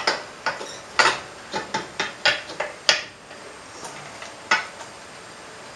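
Metal clinking and knocking, a quick run of sharp clinks over the first three seconds and one more later, as the valve cover of a Kawasaki 454LTD motorcycle engine is worked loose with tools.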